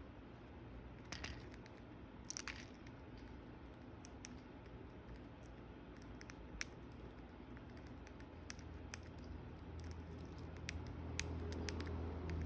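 Small bird pecking and nibbling at food: faint, irregular sharp clicks over a low hum that grows louder near the end.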